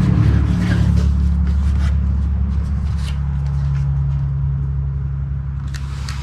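A steady low engine drone, slowly fading, with a few faint light clicks over it.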